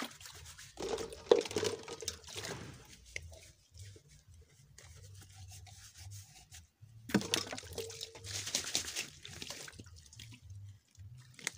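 Dishes being hand-washed in a metal basin: water poured and splashing, with plastic cups rubbed under it. Two stretches of splashing, the first with a sharp knock about a second in, the second starting about seven seconds in.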